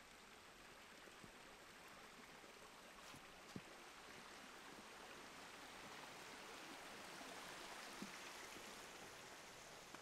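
Faint, steady rush of a small stream flowing over rocks, with a couple of soft knocks.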